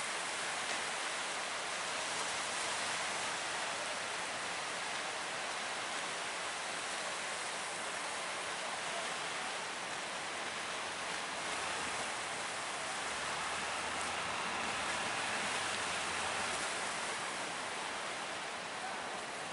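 Steady rushing of surf and moving water at a river mouth, an even hiss with no breaks. A faint low hum comes in during the second half.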